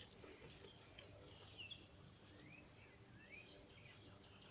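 Faint steady high-pitched insect chirring, with a few faint short bird chirps and light clicks.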